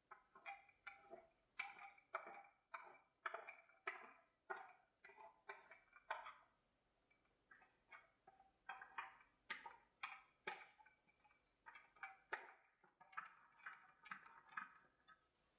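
Paintbrush dabbing and stroking paint onto a plaster bas-relief: faint, irregular ticks and short scrapes, two or three a second, with a short break about seven seconds in.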